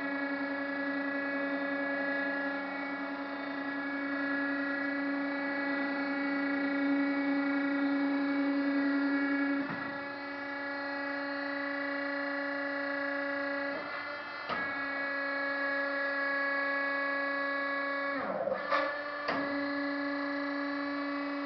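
Steady machine hum and whine of a GMC plate roll's drive running the rolls. It drops out briefly about ten seconds in and twice around fourteen seconds, and near the end its pitch sags and comes back up.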